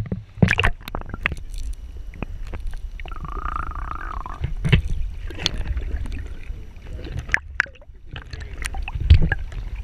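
Shallow seawater sloshing and gurgling around a waterproof camera held at and just under the surface, a steady muffled low rumble broken by sharp splashes as water slaps the housing. A muffled wavering tone sounds for about a second around three seconds in.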